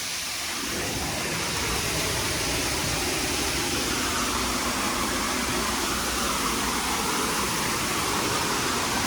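Steady rushing noise of a tall waterfall, an even hiss without breaks.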